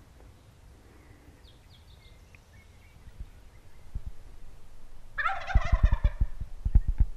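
A Merriam's wild turkey gobbler gobbles once, loud and close, about five seconds in. A run of low thumps near the microphone goes with and just after the gobble, and a small bird chirps faintly early on.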